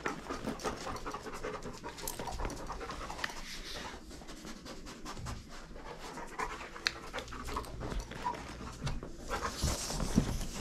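Giant Schnauzer panting steadily, with scattered light ticks.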